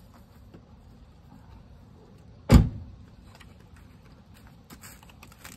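One heavy knock about two and a half seconds in, ringing out briefly, followed near the end by a few light clicks and knocks of parts being handled.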